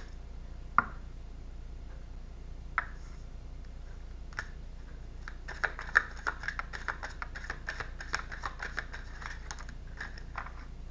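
Tarot cards being handled: a few single sharp card clicks, then a quick run of clicking from about halfway through for roughly four seconds as the deck is shuffled and worked through.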